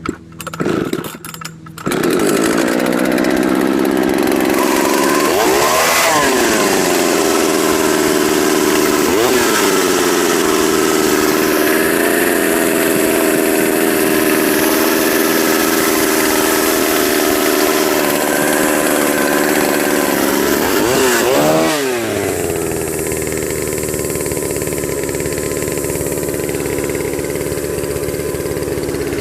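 Pioneer Partner S55 two-stroke chainsaw, long unused, pull-started: a few short sputters, then it catches about two seconds in and runs steadily. Its speed dips and picks up briefly three times, then it settles a little quieter at a fast idle, which the owner says is set too high.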